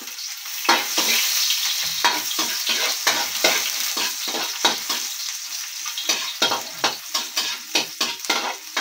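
Chopped garlic sizzling in hot oil in a metal wok, the first step of a sauté, stirred with a metal spatula that scrapes and clicks against the pan about two to three times a second.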